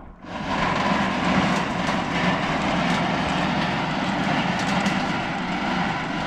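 A machine engine comes on abruptly and runs loud and steady.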